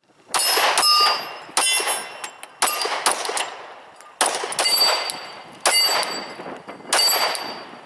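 Glock 22 Gen 2 pistol in .40 S&W firing about seven shots, spaced roughly a second apart, each followed by a metallic ringing clang that dies away slowly.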